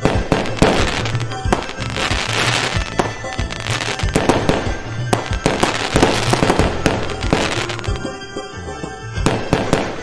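Fireworks going off in rapid succession, sharp bangs and crackling, over background music with a steady beat; the bangs thin out about eight seconds in, then a few more come near the end.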